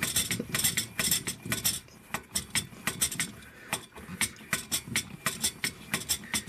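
Hand air pump on an LSO 618/619 gasoline camping stove's fuel tank being worked in quick, repeated strokes, with a short sharp click at each push and pull, to pressurise the tank.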